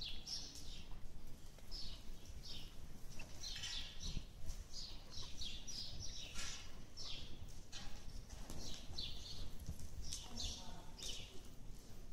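Small birds chirping: many short, high, falling chirps in quick irregular clusters, over a low rumble.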